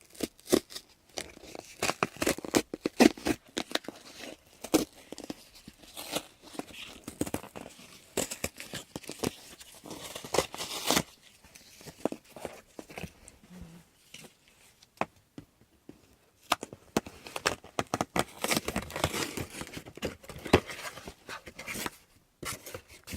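A package being torn open by hand, its wrapping rustling and crinkling in irregular spells of tearing and crackling, with short lulls about halfway through and near the end.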